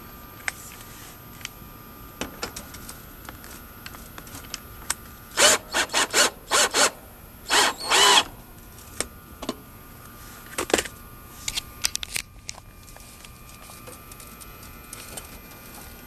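Cordless drill fitted with a nut-driver bit, run in a series of short bursts about halfway through as it drives the hex screw of the run capacitor's mounting strap. A few light clicks and taps of handling on the metal cabinet follow.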